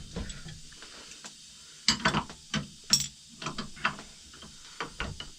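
Irregular clicks and knocks of tools and lathe fittings being handled with the lathe switched off, a dozen or so separate ratchet-like strikes with the loudest about two and three seconds in.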